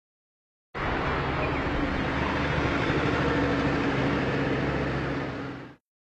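A car engine running loud and steady, starting suddenly just under a second in and dying away shortly before the end.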